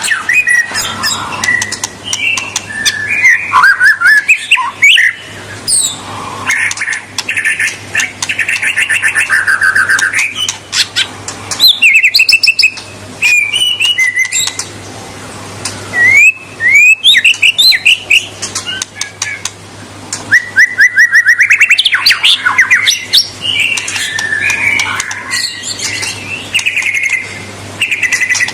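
White-rumped shama singing continuously: a varied song of rapid trills, repeated notes and quick whistled glides, mixed with sharp clicking notes.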